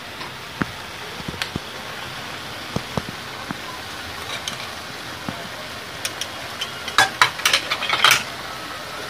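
Vegetables sizzling steadily in oil in an aluminium pressure cooker, with light clicks as stuffed aubergines are set in, then a run of sharp clinks and scrapes from a steel spoon against the pot between about six and eight seconds in.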